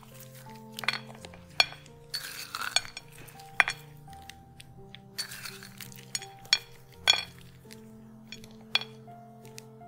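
Sharp clinks and brief rattles of pecan pieces and fingertips against a small ceramic bowl as the nuts are picked out and sprinkled, about eight separate clicks scattered through, over background music.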